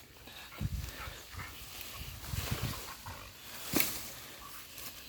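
West Siberian Laika dog playing, with soft low scuffling sounds and a sharp click just before four seconds in.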